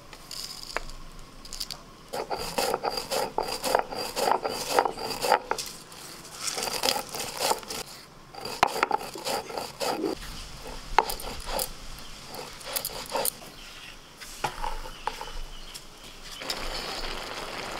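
Stone roller grinding whole spices (coriander, cumin, fennel, cardamom, bay leaf) on a textured stone grinding slab: rough rubbing and crushing with many irregular clicks and knocks of stone on stone and seeds.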